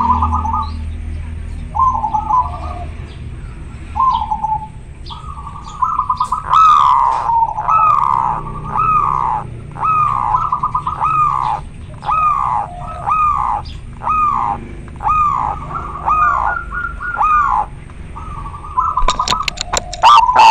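Zebra dove (perkutut) singing its cooing song: a few broken, stuttering notes, then a steady run of arched coos about one a second. A few sharp clicks come near the end.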